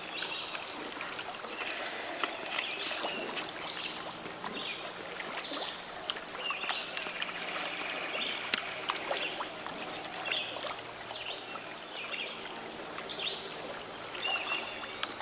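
Riverside ambience: birds chirping and trilling over running water, with scattered small clicks and splashes.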